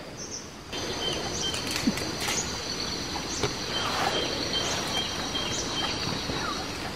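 Rainforest ambience of insects and birds: a steady high-pitched insect drone with a short pulsed call repeating about twice a second, a few brief bird chirps and occasional clicks or snaps. The sound comes up sharply just under a second in.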